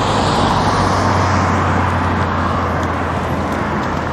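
Road traffic noise: a motor vehicle's tyre and engine noise with a low steady hum, swelling and then slowly fading as it passes.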